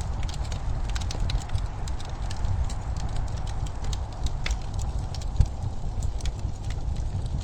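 Wood fire crackling: irregular sharp pops and snaps over a steady low rumble, with one louder pop about five seconds in.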